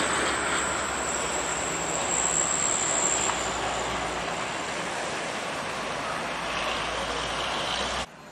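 Loaded small dump truck climbing a steep gravel grade: steady engine and tyre noise with a low hum underneath, plus a faint high whistle that fades out after about three seconds. The noise cuts off sharply near the end.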